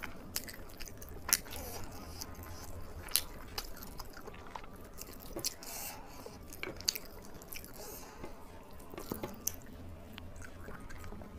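A person chewing mouthfuls of rice and curry close to the microphone, with irregular sharp wet mouth clicks. Two clicks, a little over a second in and about three seconds in, are louder than the rest.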